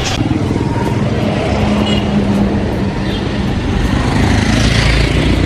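Street traffic: motor vehicles running close by, with a steady low rumble and an engine hum that holds for a couple of seconds early on.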